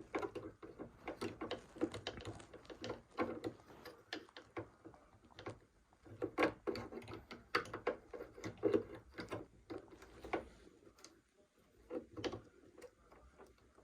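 Irregular small clicks, knocks and scrapes of the metal thread-tension assembly being handled and worked back into its seat in a PFAFF Hobby 1042 sewing machine, with a short pause near the end.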